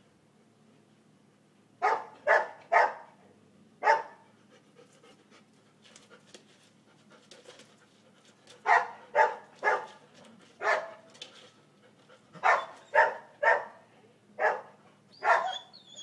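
Golden retriever barking in short runs of three or four barks, about a dozen barks in all, with pauses of a few seconds between the runs.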